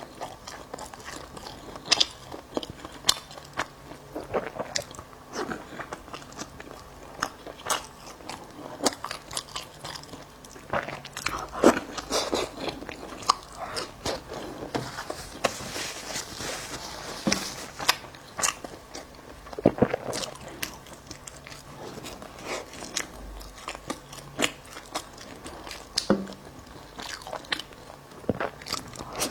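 Close-miked eating of a bagel: repeated bites and chewing with irregular crunching clicks, a few louder bites standing out.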